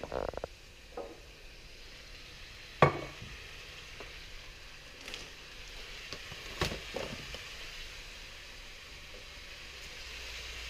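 Vermicelli noodles with prawns and beef sizzling in a nonstick wok as they are stirred with a wooden spatula, with a few knocks of the spatula against the pan, the loudest about three seconds in. The sizzle grows a little louder near the end.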